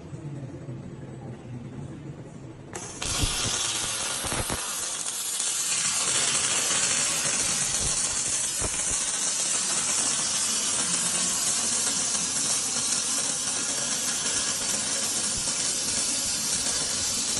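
Robotic arc welding: the arc strikes suddenly about three seconds in and then burns as a loud, steady hiss.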